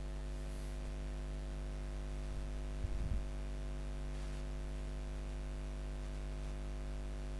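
Steady electrical mains hum with a faint hiss under it, with a brief low thump about three seconds in.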